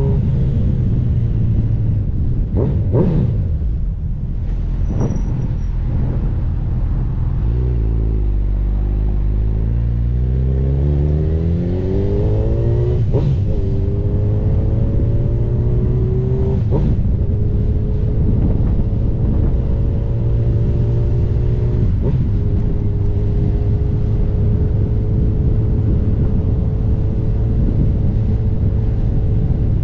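Honda CB1000R inline-four motorcycle engine on the move: the engine note drops low about eight seconds in, then climbs again through the gears, with short breaks at the shifts, and settles into a steady cruise for the last third.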